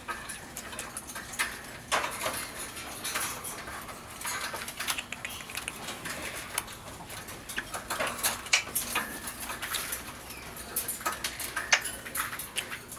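Hahn's macaw making its imitation of a kissing sound: scattered short smacks and clicks, a few louder ones in the second half.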